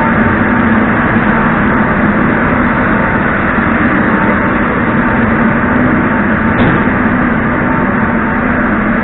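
Steady hum and rumble of a Moscow metro train standing at the platform with its doors open, its onboard machinery running, with a thin steady whine above the low hum.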